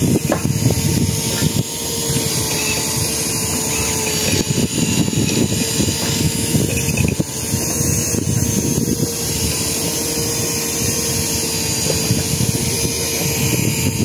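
Steady motor hum holding one pitch, over a rough rushing noise.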